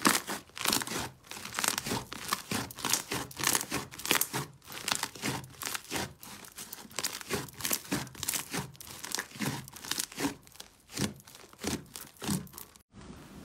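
Thick pink slime being squeezed, kneaded and pressed by hand, giving a rapid string of sticky crackles and tearing pops, several a second. It cuts off abruptly near the end.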